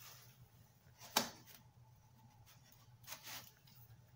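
Quiet kitchen handling noise: two short soft knocks, the louder about a second in and a fainter one about three seconds in, as the dough bowl is handled on the countertop, over a low steady hum.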